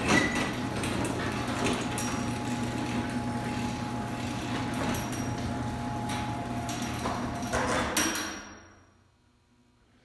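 Allister Type II chain-drive garage door opener running: its motor hums steadily while the chain and door rattle along the track, lowering the door, until it stops about eight seconds in.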